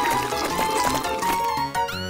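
Cartoon background music, a melody over a stepping bass line.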